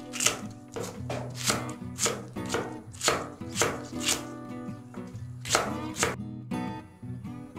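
Chef's knife chopping green onion on an end-grain wooden cutting board: sharp strikes about twice a second, a pause, one more strike, then it stops about six seconds in. Soft background music plays underneath.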